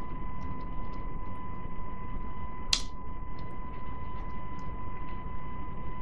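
Computer keyboard keys tapped while a password is typed: scattered faint clicks, with one sharper click a little before halfway. Under them runs a steady electrical hum with a thin high whine.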